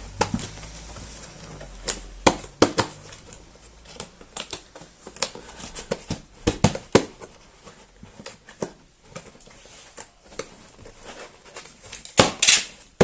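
Cardboard box being closed by hand: flaps folded down and pressed shut, with scattered taps, clicks and rustles of cardboard and packing paper, and a longer scraping rustle near the end.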